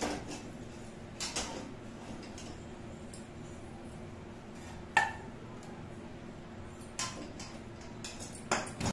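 Metal kitchenware clinking and scraping as cooked kalakand is turned out of an iron kadai into a steel plate, with a spatula against the pan. A few sharp clinks stand out over a steady low hum: the loudest about five seconds in, and a quick cluster near the end.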